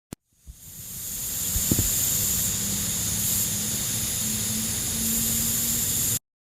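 A short click, then a steady hiss that swells in over about a second, holds, and cuts off suddenly near the end.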